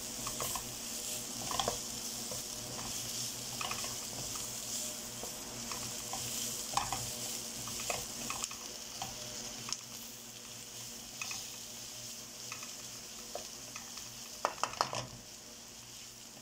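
Onion and spice masala sizzling in oil in a non-stick kadai while a wooden spatula stirs and scrapes it, with scattered light scrapes and a quick run of taps against the pan near the end. The chilli, turmeric, coriander and fenugreek powders are being roasted until their raw smell goes.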